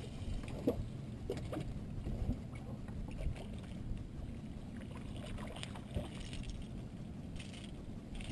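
Steady low rumble of water and wind around a fishing kayak on the water, with a few faint knocks and clicks now and then.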